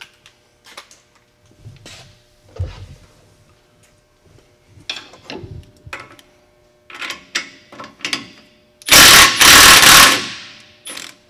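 Cordless impact wrench hammering a bolt loose on the truck's front strut assembly: one loud burst of rapid hammering lasting about a second, near the end. Before it come scattered light clicks and knocks of tools on metal.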